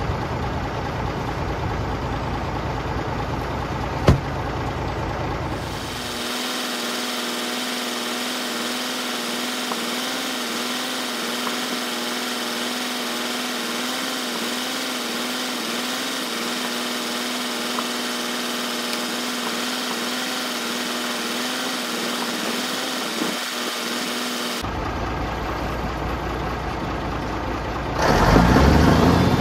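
Turbocharged Mack Thermodyne diesel engine of a 1965 Mack B61 dump truck idling steadily, with one sharp knock about four seconds in and the engine getting louder near the end.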